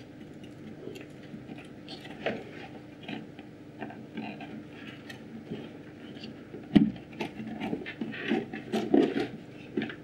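Scrapes, clicks and knocks of a subwoofer's metal amplifier panel being handled and pushed back into its carpeted enclosure, with one sharp knock about seven seconds in and a run of knocks near the end.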